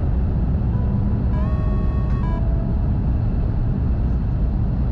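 Steady low rumble of a Tohoku Shinkansen train running at speed, heard inside the passenger cabin. A few brief sliding tones sound about a second and a half in.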